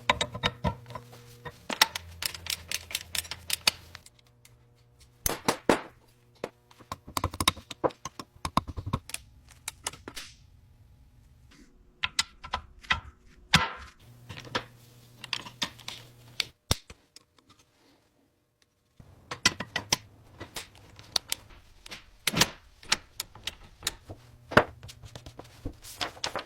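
Workshop tools and metal parts clicking and clanking irregularly in quick succession, with a low hum underneath in stretches. The clatter pauses briefly about eighteen seconds in.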